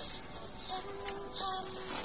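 A Thai pop song playing from a cassette tape through the small built-in speaker of a Panasonic RQ-A220 portable cassette recorder, a held melody over its accompaniment.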